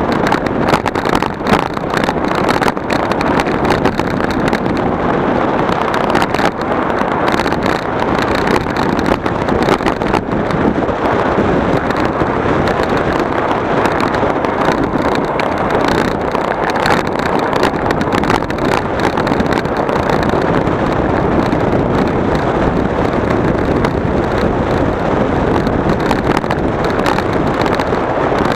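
A vehicle on the move: a loud, steady rumble with wind buffeting the microphone and many small knocks and rattles throughout.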